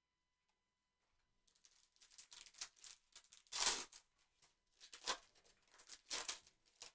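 Faint crinkling and tearing of a foil trading-card pack being handled and opened by gloved hands, with a few short louder rustles in the second half.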